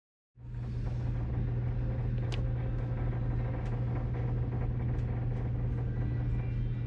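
Steady low drone of the Taima ferry's engines heard inside a cabin, coming in a moment after a brief silence and holding level, with a few faint clicks.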